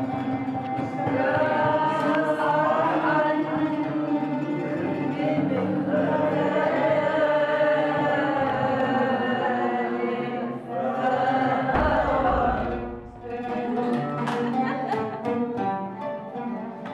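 Several voices sing a song together over ouds being plucked, with a few sharp strokes near the end.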